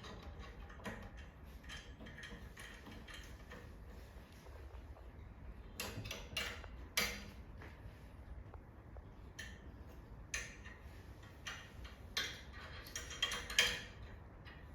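Metal tubes and connectors of a golf-bag holder clinking and knocking as they are fitted together, a string of irregular sharp clicks with a few louder knocks about six to seven seconds in and again near the end.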